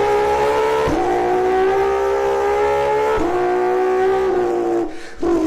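Porsche 992 GT3's naturally aspirated flat-six at high revs, a steady high-pitched wail that dips briefly about a second in and again about three seconds in, like quick upshifts, and fades for a moment near the end.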